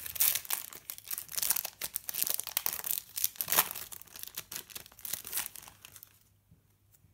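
Foil wrapper of an Adrenalyn XL trading-card packet crinkling and crackling as it is torn open and the cards are pulled out. The sound stops about six seconds in.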